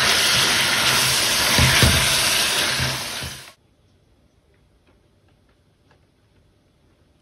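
Sausages and broccoli rabe sizzling in a frying pan as they are stirred with a wooden spoon: a steady hiss with a few low knocks, cutting off suddenly about three and a half seconds in, then near silence.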